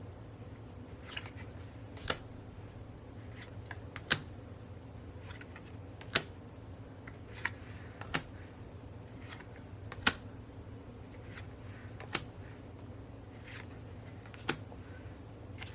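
Photocards being handled and laid down one at a time: a sharp tap about every two seconds, with softer card rustles between.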